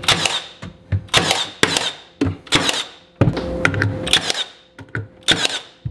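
Cordless nail gun firing nails into a wooden board, a run of sharp cracks, some a fraction of a second apart.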